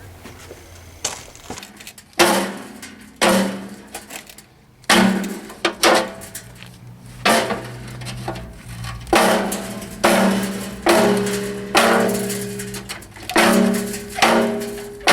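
Music with a heavy drum beat: a hard hit about once a second over held bass and guitar-like notes.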